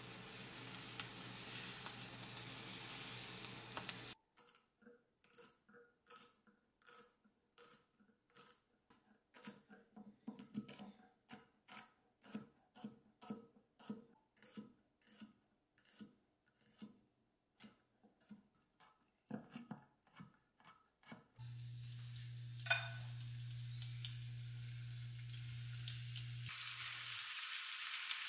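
A chicken leg sizzling as it browns in a frying pan. Then a chef's knife chopping herbs and garlic on a wooden cutting board, in steady strikes about two a second. Near the end a steady low hum with a single click.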